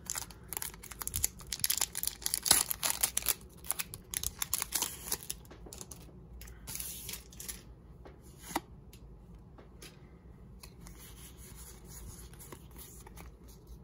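Foil trading-card booster pack wrapper crinkling as it is cut and torn open, a dense run of sharp crackles over the first six seconds. Then quieter handling, with a single sharp click about eight and a half seconds in.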